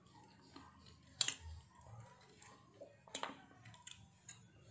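Metal spoon clinking and scraping on a ceramic plate while eating, with a sharp clink about a second in, another about three seconds in, and lighter ticks between.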